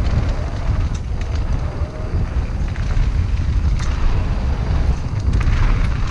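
Wind buffeting the microphone of a helmet camera on a mountain bike descending a loose gravel trail, over the hiss of tyres rolling on gravel and scattered clicks and rattles from stones and the bike. The gravel hiss gets louder near the end.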